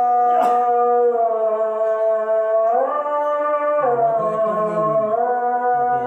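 A voice chanting in long drawn-out notes that hold steady, rise about three seconds in and slide back down a second later, in the manner of an Islamic prayer chant, over a steady lower tone.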